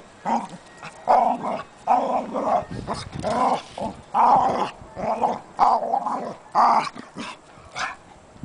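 A Chow Chow and a West Highland White Terrier wrestling in play, with a string of short play growls about a second apart, starting about a second in and dying away near the end.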